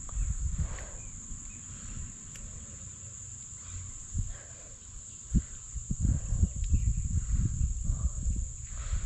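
Insects droning steadily on one high pitch. From about five seconds in there are irregular low thumps and rumble, close to the microphone.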